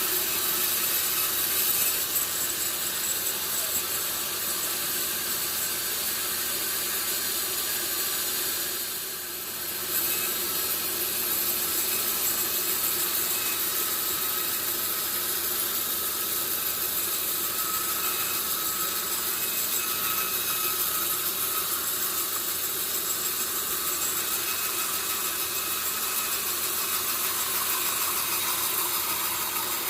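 Sawmill saw cutting through a large log, running steadily with a high, hissing edge, with a brief dip in level about nine seconds in.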